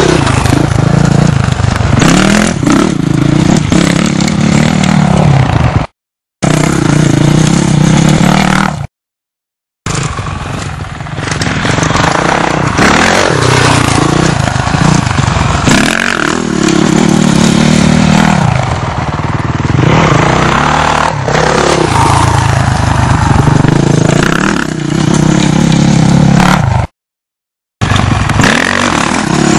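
Dirt bike engines revving up and down, loud and rough, the pitch rising and falling with each throttle burst. The sound cuts out abruptly three times and comes back.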